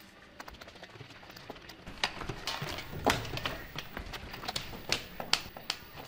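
Footsteps on a hard, polished floor: shoes clicking at a walking pace, getting louder and closer from about two seconds in.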